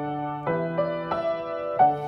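Upright piano played slowly with sustained, ringing chords, a new chord struck about every two-thirds of a second, three times in all.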